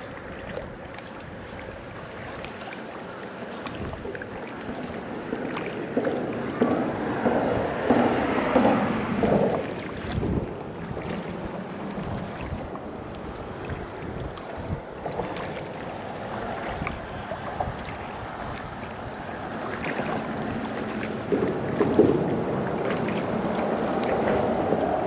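River water running with wind blowing over the microphone, a steady rushing that swells louder twice, with a few small clicks.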